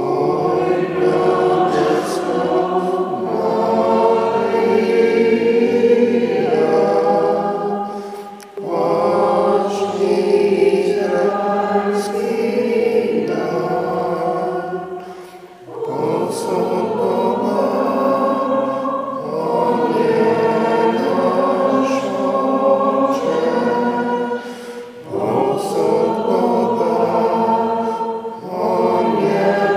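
Many voices singing a hymn together in a reverberant church, in sustained phrases broken by short pauses for breath.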